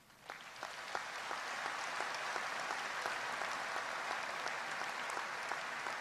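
Audience applause: a few scattered claps that swell within about a second into dense, steady clapping from a large crowd.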